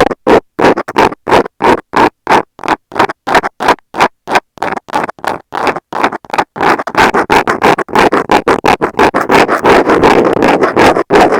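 Metal scaler scratching right on an earphone microphone, close and loud. It starts as short separate strokes, about two to three a second, and about six seconds in turns to faster, almost continuous scratching.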